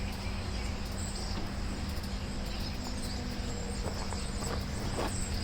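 A 1969 Gravely L-I's engine being turned over by hand without firing, a steady low rumble with a few faint knocks. The magneto is giving no spark.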